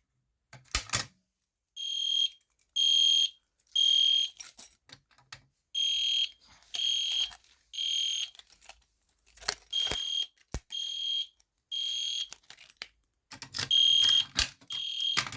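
EST Genesis fire alarm horn strobe sounding in the temporal-3 evacuation pattern: three short, high-pitched blasts, a pause, then three more, repeated four times. It was set off by pulling the manual pull station, with a sharp click just before the first blasts.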